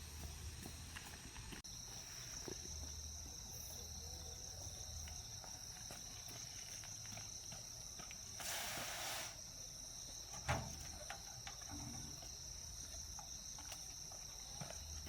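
Insects trilling in one steady, high, continuous drone that sets in about a second and a half in. A short hiss of under a second comes just past the middle, and a single knock follows about two seconds later.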